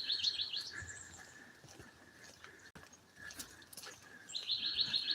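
A bird singing up in a tree: a quick run of about six high chirping notes, repeated about four seconds later, over a faint steady high tone.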